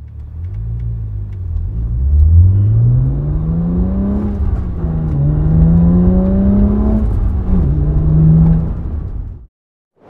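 BMW 1-Series engine through a COBB stainless steel 3-inch cat-back exhaust, heard from inside the cabin, accelerating from a standstill. The engine note climbs, drops at an upshift about four seconds in and again about seven seconds in, then holds steady before cutting off suddenly near the end.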